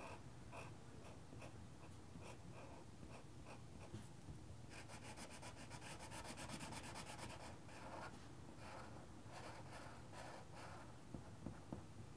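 Felt-tip marker scratching on paper, faintly: short separate strokes, then a few seconds of quick back-and-forth colouring in the middle.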